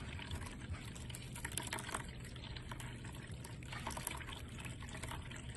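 Cat water fountain trickling steadily, its stream falling from the spout into the bowl, with scattered small splashes and clicks as cats paw at the water and drink from the spout.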